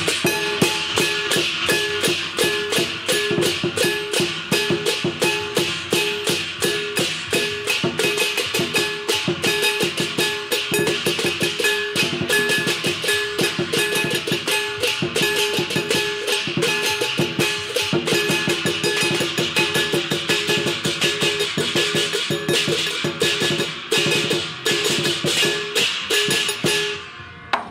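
Lion dance drumming: drums beaten rapidly with sticks together with clashing hand cymbals in a fast, steady rhythm. The playing breaks off briefly near the end.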